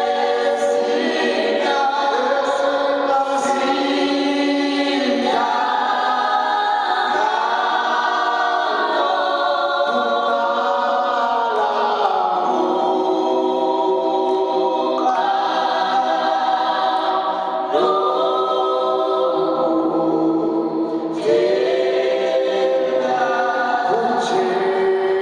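Gospel choir singing in harmony, with many voices holding chords that shift to new pitches every few seconds.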